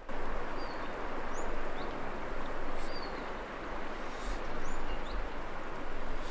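Steady rush of river rapids, with a small bird's short chirping calls repeating over it about once a second.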